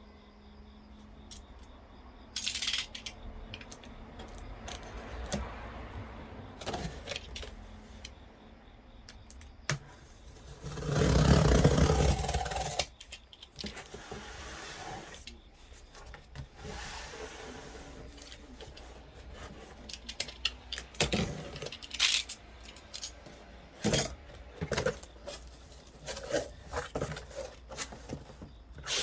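Metal computer case parts and screws being handled: scattered clicks, clinks and scrapes, with a louder rush of scraping about ten seconds in.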